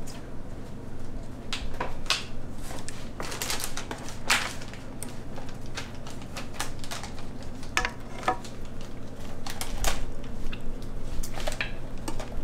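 Irregular clicks, taps and clinks of a serving ladle and utensils against a cooking pot and a plate as oxtails are dished up, over a low steady hum.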